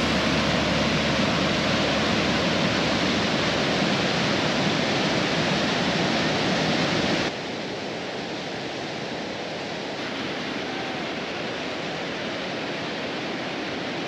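Waterfall rushing steadily as white water cascades down rock slabs. About seven seconds in, the sound cuts suddenly to a quieter, duller rush of water.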